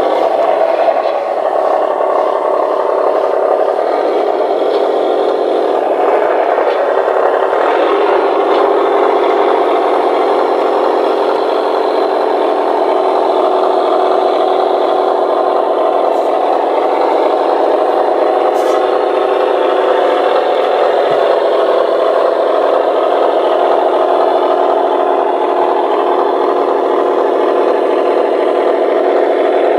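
On30 model train running on its track: a steady whir from the locomotive's motor and gears, with the wheels rattling over the rails.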